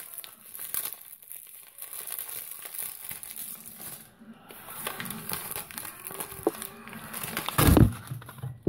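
Thin plastic bag crinkling as it is handled, in a run of small crackles, with a loud thump near the end.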